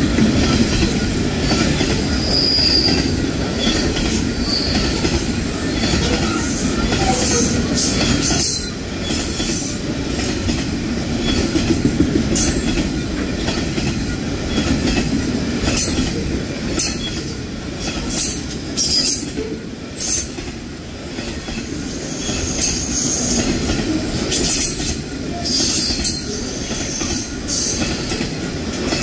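Container freight train's flat wagons rolling past close by: a steady rolling noise of steel wheels on the rails, with short high-pitched flashes coming and going throughout.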